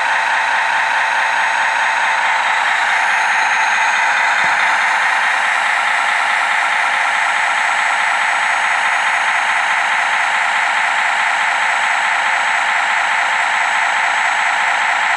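Hydraulic pump of a radio-controlled model truck's folding loading crane running steadily while the crane moves: a loud whirring whine with hiss that grows a little brighter about three seconds in.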